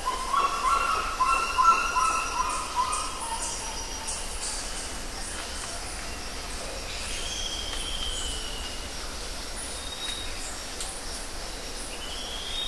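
Forest birds calling: a quick run of chirping notes in the first few seconds, the loudest part, then two long whistled notes, one around the middle and one near the end. Short high ticks run through the background.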